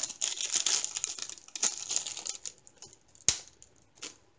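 Clear plastic sleeve crinkling as the rolled diamond-painting canvas inside it is handled, dying away after about two and a half seconds. A sharp tap about three seconds in, the loudest moment, and a smaller one about a second later.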